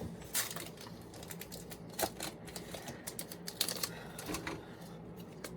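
Trading cards and a foil booster pack being handled, giving an irregular scatter of light clicks and crinkles.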